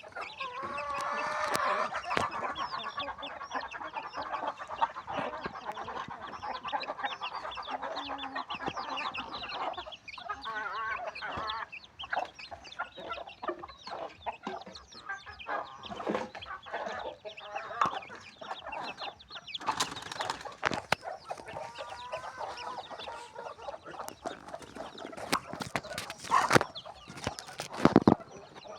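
A flock of desi chickens clucking and calling over one another, with one louder drawn-out call near the start. Several sharp knocks or clatters come near the end.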